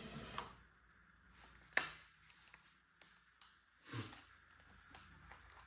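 Two sharp clicks about two seconds apart, with faint small ticks between: hand tools and bolts handled while the four end-cap bolts on a pool pump motor are threaded in and tightened.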